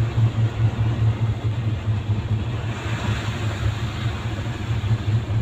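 Car cabin noise while driving through heavy rain: a steady low road-and-engine rumble under an even hiss of rain and wet tyres on the road.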